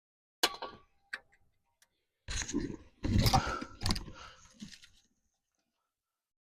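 Metal tools and parts clinking and clattering as they are handled during work on a front wheel hub: a sharp click about half a second in, another about a second in, then a cluster of knocks and rattles with short metallic ringing from about two to five seconds in.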